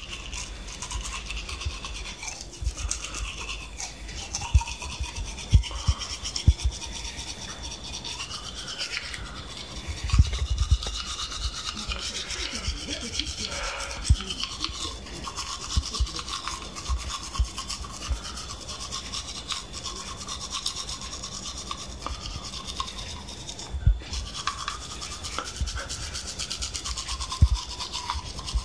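Manual toothbrush scrubbing teeth through toothpaste foam, a fast, continuous wet rasp close to the microphone. A few dull low bumps stand out here and there, about half a dozen of them.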